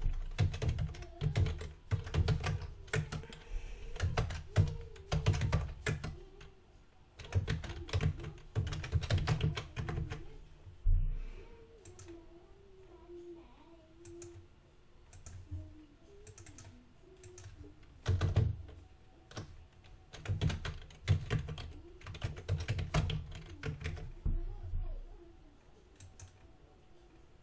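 Typing on a computer keyboard in quick bursts of keystrokes, with a sparser stretch of a few seconds near the middle before the typing picks up again.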